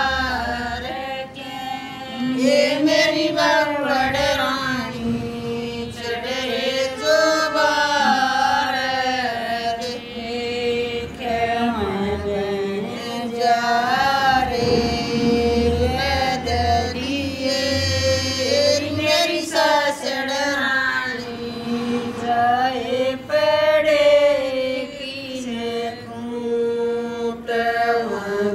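Women singing a Haryanvi Sawan folk song, a slow chant-like melody with drawn-out, wavering notes and no instruments.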